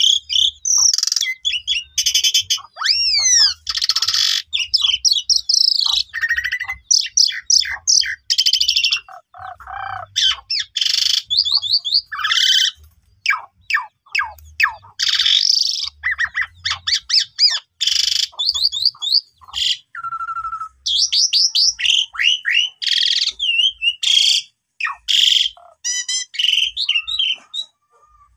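Asian pied starling (jalak suren) singing a long, loud, varied song of quick whistles, sweeping glides, chattering trills and harsh squawky notes, broken only by short pauses.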